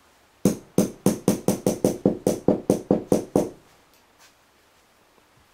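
A fly-tying hair stacker tapped down on the bench about fourteen times in quick, even succession, roughly five taps a second, to align the tips of a bunch of deer hair for a Comparadun wing.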